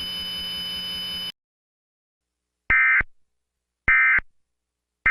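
A steady electronic hum with a high whine cuts off about a second in. Then come the Emergency Alert System end-of-message code's short, loud bursts of data tone, about a second apart: two whole bursts, and a third just beginning at the very end. They signal that the alert has finished.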